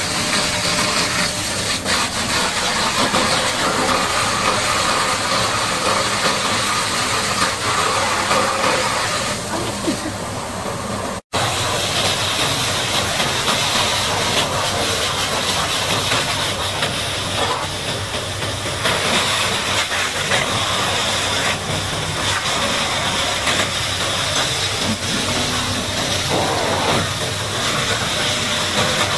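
High-pressure water spray hissing steadily against a Caterpillar D8T bulldozer, with an engine running underneath; the sound breaks off for an instant about eleven seconds in and picks up again.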